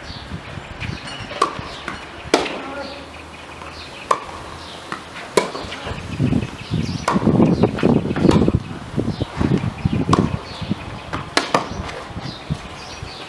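Tennis rally on an outdoor hard court: sharp racket strikes and ball bounces, roughly one every second or so, with a louder stretch of low thudding in the middle.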